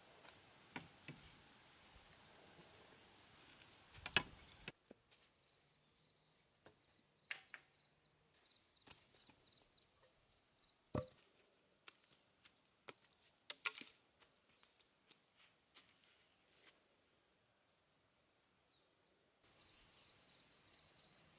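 Scattered light knocks and taps, about a dozen, with the loudest cluster about four seconds in and a single sharper one near eleven seconds, over a near-silent background.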